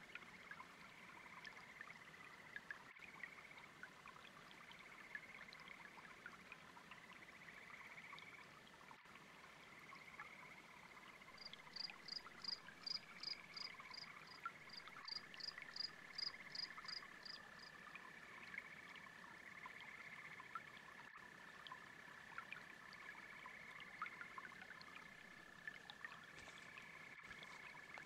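Faint frog chorus trilling over a babbling brook, with a steady high insect trill running through it. About halfway through come two quick runs of sharp, high clicking calls.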